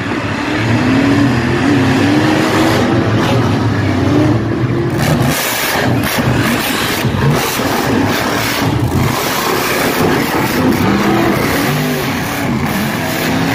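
Monster truck engines revving hard, the pitch repeatedly rising and falling, loud and continuous, with a harsher, noisier stretch from about five seconds in.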